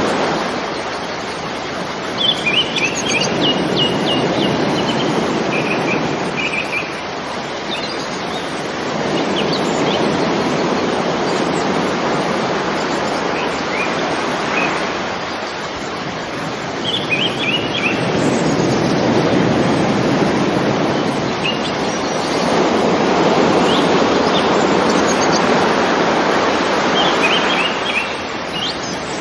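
Waves washing in slow swells that rise and fall every several seconds, with small birds chirping in short quick runs above them several times.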